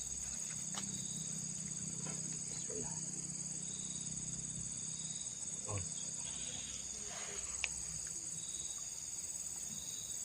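Steady high-pitched insect chorus, with a low hum through the first half and a few faint knocks near the start, middle and end.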